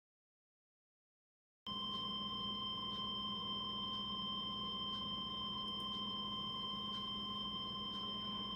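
NOAA Weather Radio 1050 Hz warning alarm tone: one steady high tone that starts after a moment of dead silence about two seconds in and cuts off sharply near the end, over a faint low hum. The tone signals that a warning is about to be broadcast and switches on alert receivers.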